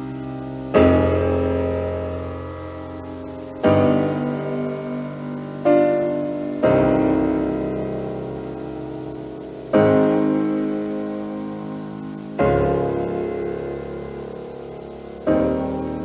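Piano playing sustained chords, seven in all, each struck and left to ring and die away, a new one every two to three seconds. The long held tones are test material for hearing flutter, a wavering in pitch, in a cinema projector's sound head.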